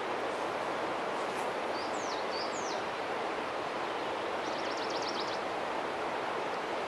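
Forest ambience: a steady rushing noise with a few bird calls over it, two quick downward-sweeping chirps about two seconds in and a fast trill a little past the middle.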